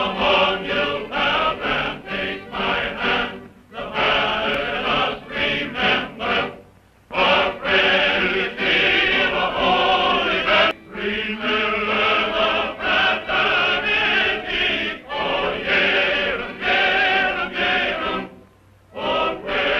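A group of voices singing together in chorus, phrase by phrase, with short breaks in between. It comes from an early 1930s film soundtrack, with a dull, muffled top end.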